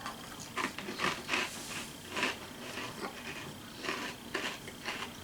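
Chewing of Cheetos Simply NKD Flamin' Hot Crunchy corn snacks close to the microphone: irregular crunches, about two a second.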